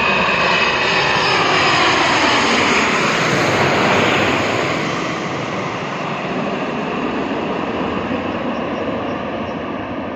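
Boeing 787 jet engines on final approach passing low overhead with gear down: a loud jet roar with whining tones that slide down in pitch as it goes over, loudest in the first few seconds, then fading as the airliner flies away toward the runway.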